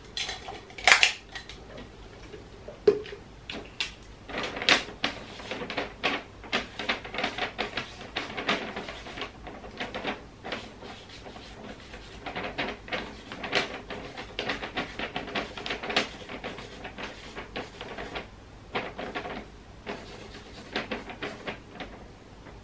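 Marker writing on wrapping paper over a gift box: quick, uneven scratching and tapping strokes, with a few sharper clicks near the start.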